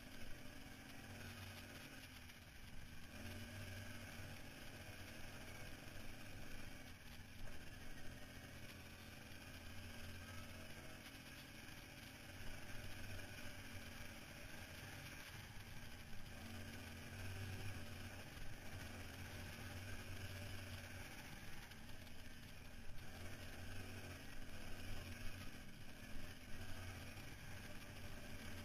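ATV engine running while riding a rough dirt trail, its low note swelling and easing off in stretches with the throttle, over a steady rush of wind and ground noise with occasional jolts.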